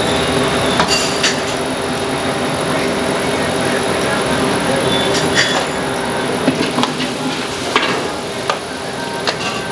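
Chopped onion and green chilli frying in hot oil in a large aluminium kadhai: a steady sizzling hiss, with a few sharp clicks as a perforated steel ladle scrapes and knocks against the pan.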